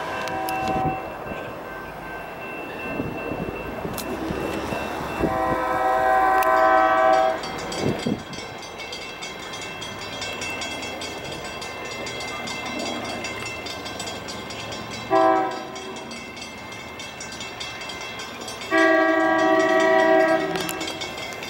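SEPTA Regional Rail electric multiple-unit train's air horn sounding four blasts, short, long, short, long, over the rumble of the train running on the track: the horn warning for the grade crossings at either end of the station.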